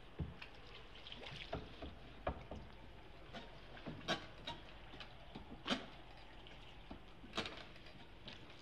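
A long wooden oar rowing a small boat through canal water: faint lapping and dripping, with sharp splashes and knocks every second or two, the loudest a little past halfway.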